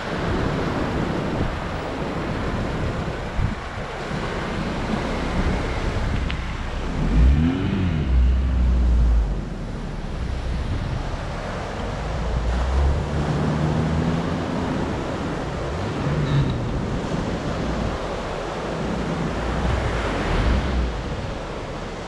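Wind buffeting the microphone over surf, with a Lada Niva's engine revving as it drives down onto soft beach sand and pulls through it. The engine climbs in pitch about seven seconds in and is loudest there, then holds a steady note for a few seconds.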